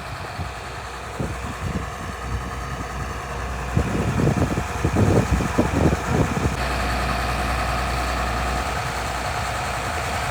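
Engine of a potato harvesting machine running steadily with a low rumble, with a string of irregular thumps and knocks between about four and six and a half seconds in.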